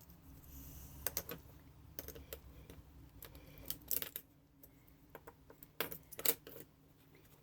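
Small brass faucet pieces clinking and clicking against metal as they are worked loose and handled: scattered sharp clicks, the loudest a little past six seconds in.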